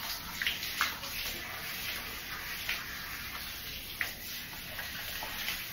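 Handheld shower head spraying water over a soapy dog's coat: a steady hiss of running water, with a few brief, sharper sounds.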